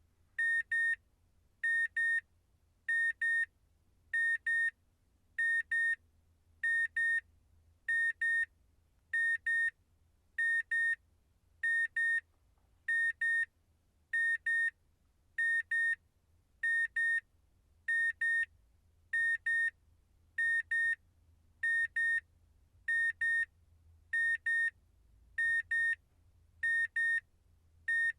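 Electronic error beep: a high, steady-pitched tone sounding in quick pairs, beep-beep, with one pair about every second and a half, repeating evenly.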